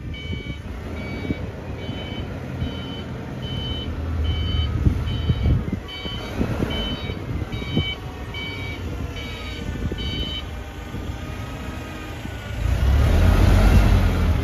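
Hangcha 5-ton LPG forklift reversing: its reversing alarm beeps steadily, about one and a half beeps a second, over the low running of its Kubota engine. The beeps stop about ten seconds in, and near the end the engine gets louder as it speeds up.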